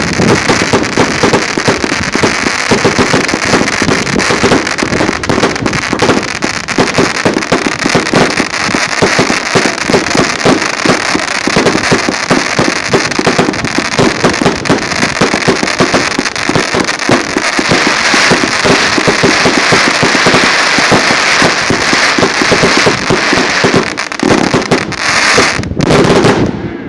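A "Crackles and Colors" consumer firework giving off a dense, continuous crackle of rapid small pops, loud and steady, that stops suddenly just before the end.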